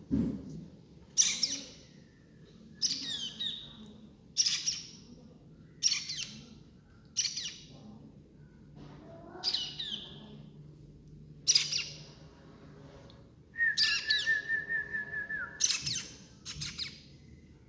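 Baby birds chirping: short, high-pitched calls about every second and a half, then a fast run of calls lasting about two seconds, a little past two-thirds of the way through.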